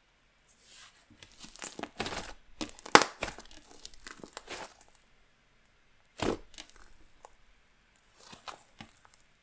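Thick fluffy slime, clear slime mixed with clay, squished and stretched by hand. It gives irregular runs of crisp, sizzly crackles and pops, with a sharp pop about three seconds in and another after six seconds. The crackling is the sound of an inflated slime full of trapped air.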